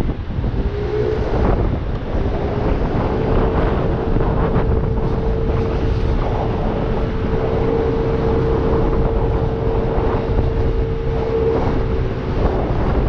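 Wind buffeting the microphone while riding an Aprilia SXR 50 scooter. Under the wind, the engine's steady whine rises a little over the first few seconds and then holds.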